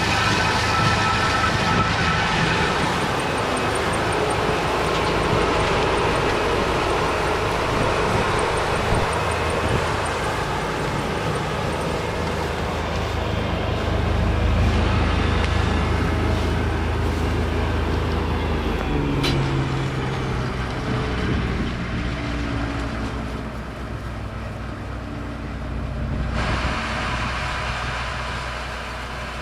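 New Holland TR89 combine harvester running while harvesting oats, a steady machine drone whose tone shifts about halfway through and again near the end.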